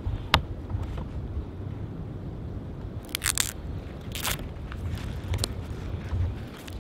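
Black vinyl electrical tape wrapped around a tree trunk being gripped and tugged by hand, giving a few short crackling scrapes, with a sharp click shortly after the start and a low steady rumble underneath.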